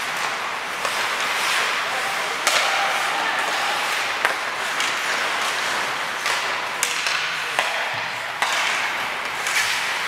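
Ice hockey play: a steady scraping hiss of skates on the ice, broken by irregular sharp clacks of sticks striking the puck and each other.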